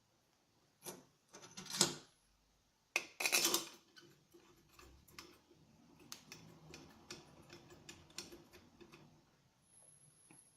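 Small metal parts and hand tools clinking and clattering as they are handled, with a few louder clatters in the first few seconds, then a run of light ticks and taps.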